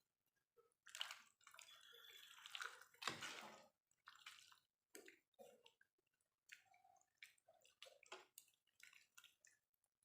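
Faint water running for about three seconds, starting about a second in, followed by scattered small clicks and knocks of kitchen handling.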